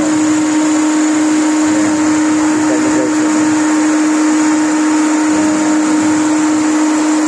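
Steady whirring hum with one constant tone from the engine bay of a 2023 Chevrolet Captiva, its radiator cooling fan running.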